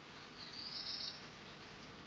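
Embroidery thread drawn through knit fabric: one short, high swish of under a second, about half a second in, over a faint steady hiss.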